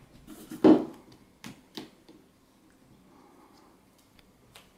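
A cat jumping up onto a cabinet top, landing with a single loud thud under a second in, followed by two lighter knocks as it shifts its footing among the books.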